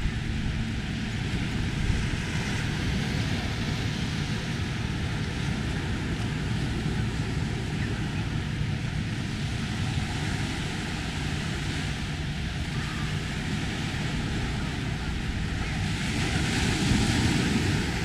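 Steady rush of small surf breaking and washing up the beach, mixed with outdoor wind noise, swelling a little near the end.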